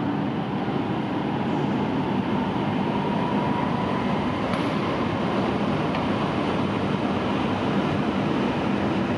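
Tohoku Shinkansen E5 series train pulling in alongside the platform, a steady rush of rolling and running noise as its nose and cars glide past.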